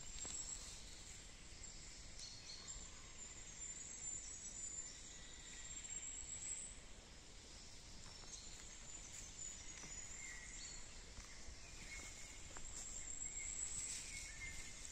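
Quiet forest ambience: thin, high-pitched bird calls and short chirps over a soft background hiss, with a few faint footsteps on the path.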